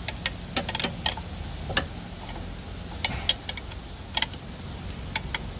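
Irregular metallic clicks and taps from a wrench working the adjuster bolt of a car's alternator drive belt, several in quick succession in the first second and then spaced out, over a steady low rumble.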